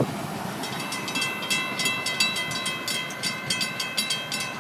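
Grade crossing bell ringing with quick, repeated strikes, starting about half a second in, over the steady rumble of a Florida East Coast Railway freight train's cars rolling past.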